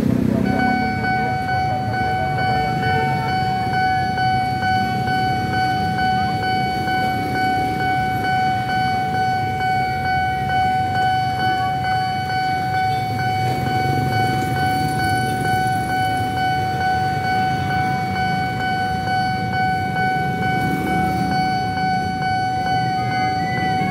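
Railway level-crossing warning alarm sounding one steady high electronic tone, starting about half a second in, over the low running of passing motorcycles.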